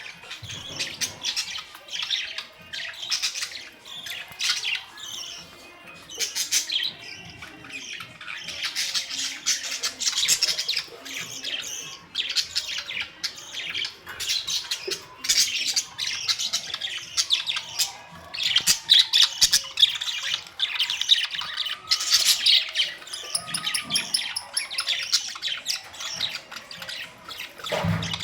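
Budgerigars chattering, warbling and squawking without pause, a dense mix of rapid clicks, chirps and harsh calls from several birds.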